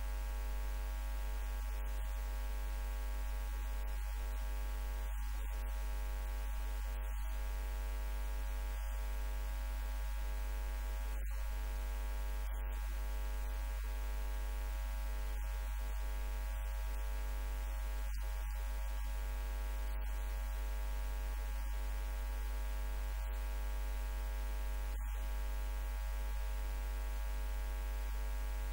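Steady electrical mains hum: a low, unchanging buzz with many even overtones and nothing else.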